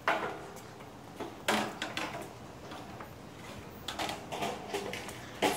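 Several sharp knocks and clatters: one at the start, one about a second and a half in, and one near the end, with fainter rustling between.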